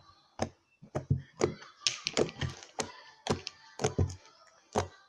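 Fingers poking into slime, making a quick irregular run of sharp wet clicks and pops, about a dozen.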